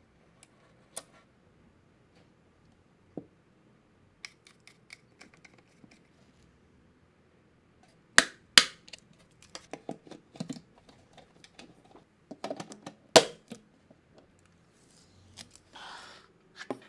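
Scattered clicks and snaps of a plastic wall switch being handled and fitted, with sharp snaps about eight seconds in and again near thirteen seconds, and a brief rustle near the end.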